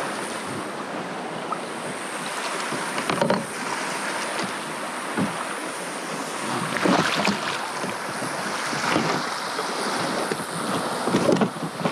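Water sloshing and lapping against a kayak's hull as it comes in close to shore, with wind noise on the microphone and a few louder splashes.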